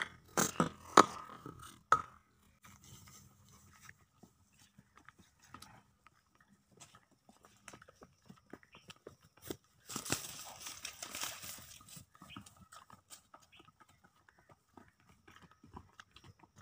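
A horse's hooves knocking irregularly on a hard path, with a few sharp strikes at the start and scattered faint ones later, and a rushing noise lasting about two seconds near the middle.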